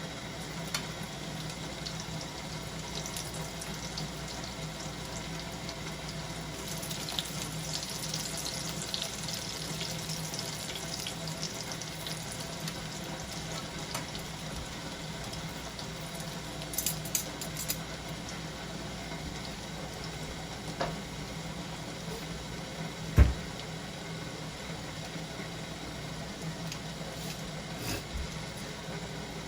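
Fritters frying in hot oil in a pan, a steady sizzle that carries on throughout, with a steady low hum under it. A single sharp knock sounds about 23 seconds in.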